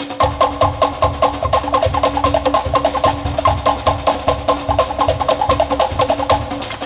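Cook Islands drumming: a fast, dense rhythm on wooden slit drums, with low bass-drum beats coming in just after the start.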